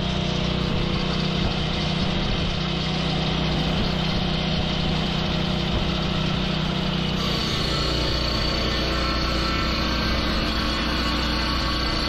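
Gasoline engine of a Lucas portable swing-blade sawmill running steadily with its circular blade spinning. About seven seconds in, the sound changes and a higher steady whine joins it.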